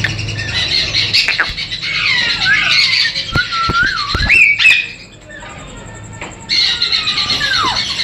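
Parrots squawking and whistling: short rising and falling calls, with a loud shrill squawk about four and a half seconds in, a brief quieter spell, then more calls.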